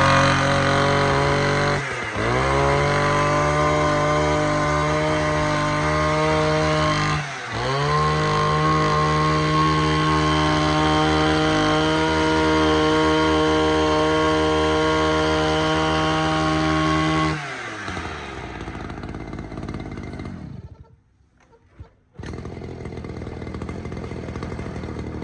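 Robin NB351 35cc two-stroke engine of a field trench-cutting machine running fast. Its speed drops briefly twice and climbs back, and it cuts out about seventeen seconds in.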